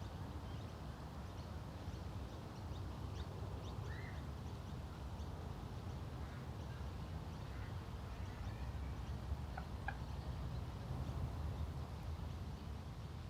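Lakeside park ambience: scattered bird calls, some duck-like, over a steady low rumble.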